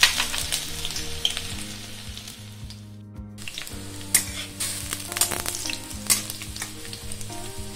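Chopped ginger sizzling as it fries in hot oil in a metal kadai. A metal spatula scrapes and taps the pan several times in the second half. The sizzle drops out briefly about three seconds in.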